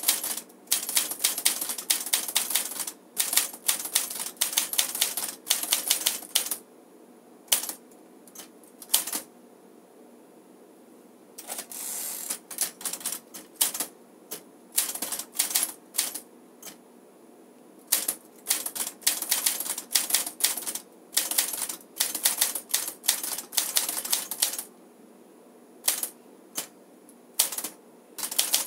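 1956 Smith-Corona Silent Super manual typewriter being typed on: runs of quick key-and-typebar clacks, several a second, with a lull of a few seconds midway and a longer continuous rattle about twelve seconds in. Its typing sound is exceptionally quiet for a typewriter, as its name says.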